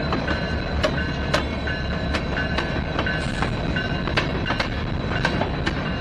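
Norfolk Southern diesel locomotives and covered hopper cars rolling slowly past, wheels clicking over rail joints about twice a second over a steady diesel rumble, with a thin high wheel squeal.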